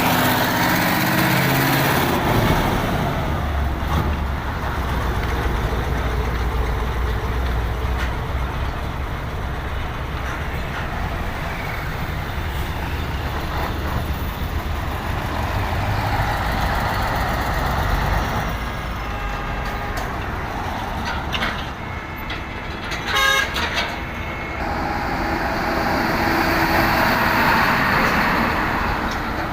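Heavy diesel trucks climbing an incline amid road traffic, engines running under load, with horn toots sounding in the first couple of seconds and again near the end.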